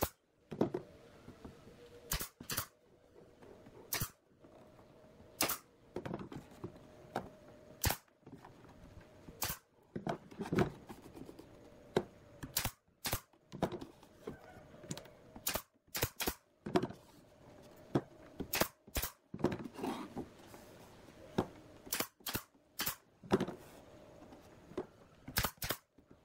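Pneumatic brad nailer firing shot after shot as it drives brads through a thin bent wooden band into pine basket staves: sharp cracks at an uneven pace, about one to two a second, sometimes two in quick succession.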